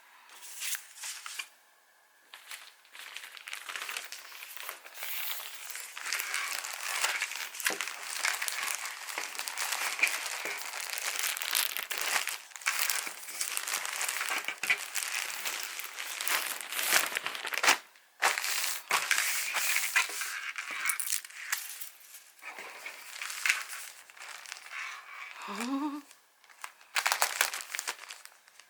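Packaging being handled while orders are packed: irregular crinkling and rustling, with short clicks and a few brief pauses, and a short rising squeak about three-quarters of the way through.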